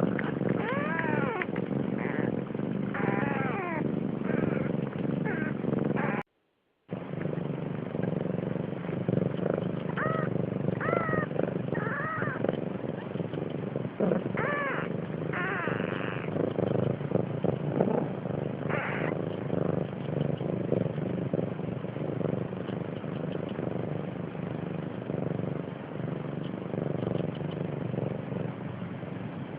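Siamese cat meowing repeatedly: a string of short rising-and-falling calls, mostly in the first two-thirds, over a steady low rumble. The sound cuts out completely for about half a second a little after six seconds in.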